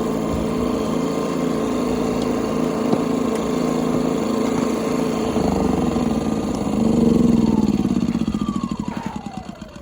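Two Predator 2000 inverter generators running together in parallel with the CO sensor bypassed. The engine hum swells louder about seven seconds in. Then a whine falls in pitch and the sound fades over the last two seconds, as if winding down.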